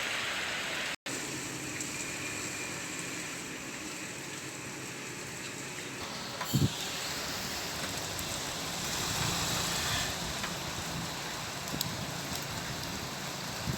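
Steady rain falling, heard from an apartment window, with a low rumble of wet road traffic beneath it that swells briefly midway. The sound cuts out for an instant about a second in, and there is a short low thump about six and a half seconds in.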